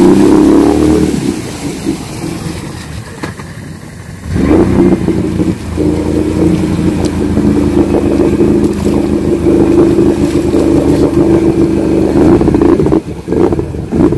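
Can-Am Outlander ATV engine revving hard while the quad sits stuck in deep mud. The revs drop about a second in, come back up about four seconds in and hold steady, then break up near the end.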